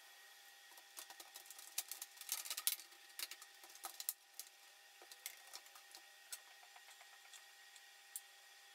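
Faint clicks and rattles of laptop parts being handled and fitted back together during reassembly, busiest between about one and four seconds in, then a few scattered clicks.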